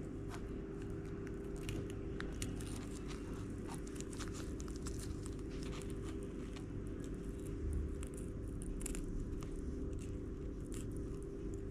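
Knife blade cut along a jack mackerel's tail under its rigid bony scutes, giving scattered small crunching clicks and scrapes.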